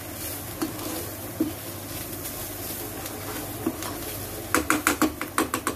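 Metal spatula stirring and scraping sautéed onion and capsicum stuffing around a frying pan over a low sizzle, with a few scattered clicks. About four and a half seconds in it breaks into a quick run of sharp taps and scrapes against the pan, several a second.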